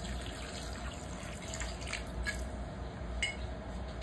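Vinegar poured in a thin stream into a pan over raw chicken feet, steadily trickling and splashing.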